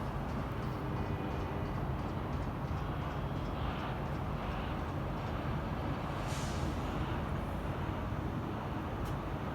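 Metrolink commuter train's diesel locomotive rumbling steadily, with a brief hiss about six seconds in.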